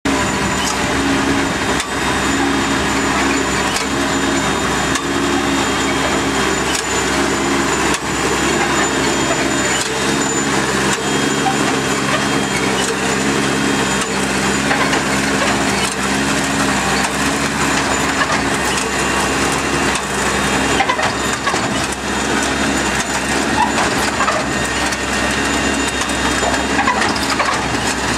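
Automatic turf harvester running: a steady engine and hydraulic drone with a continuous clatter and rattle from its cutting and conveyor mechanism.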